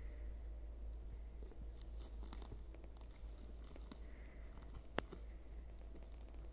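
Faint scattered clicks and rustling over a low steady rumble, with one sharp click about five seconds in.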